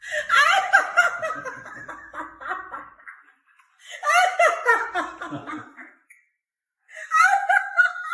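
Laughter in three bursts of about two to three seconds each, separated by short silences.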